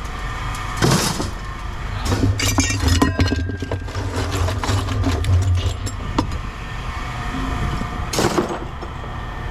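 Pieces of scrap metal clinking and clanking as they are handled and sorted, with a short clatter near the end, over a steady low hum.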